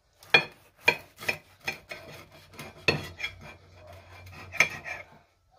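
Knife sawing back and forth through a steak sandwich on a ceramic plate: about a dozen sharp sawing strokes, two to three a second.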